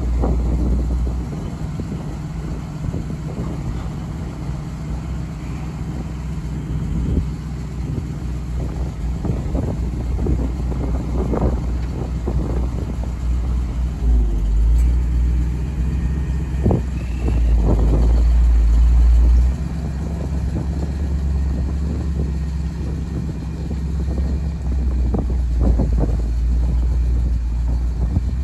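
Chevrolet dump truck's engine running steadily while the raised dump bed comes down, then the truck pulls forward. There are louder low swells in the middle and scattered knocks.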